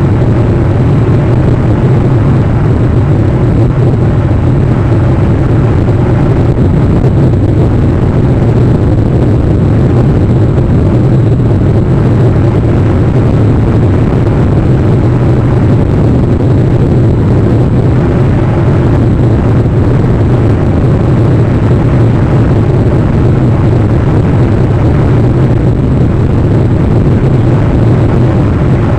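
A steady, loud low rumble with a hiss above it, unchanging and with no distinct events.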